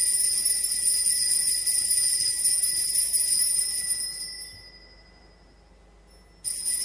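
Altar bells (sanctus bells) ringing at the elevation of the chalice during the consecration at Mass. A bright, shimmering ring dies away about four to five seconds in, and a second ring starts near the end.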